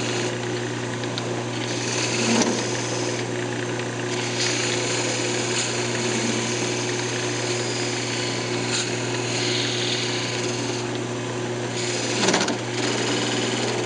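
Wood lathe running with a steady motor hum while a 1/8-inch beading tool scrapes into a spinning cocobolo blank, giving a continuous hissing cut. The cut gets briefly louder about two seconds in and again near the end.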